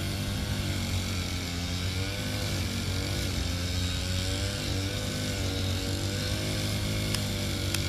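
Engine of a motorized grass cutter (brush cutter) running steadily, its pitch wavering slightly as it works.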